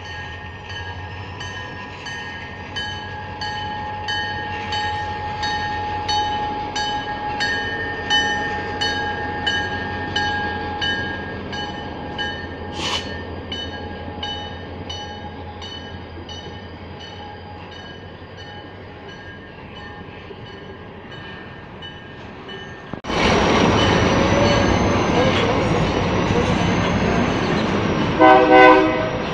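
Heavy diesel freight train rolling by, its wheels clicking regularly over rail joints, with a thin steady squeal above. About 23 seconds in it jumps to a louder, closer train rumble, and a locomotive horn sounds near the end.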